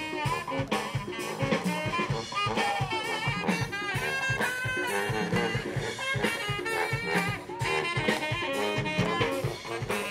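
Live brass band playing: trumpets, trombones and saxophone over a sousaphone bass line, with a drum kit keeping a steady beat.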